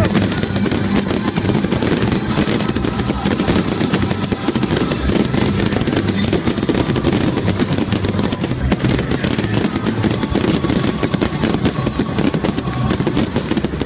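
Fireworks display going off: a dense, unbroken run of crackling, popping and banging from many aerial shells and rockets at once.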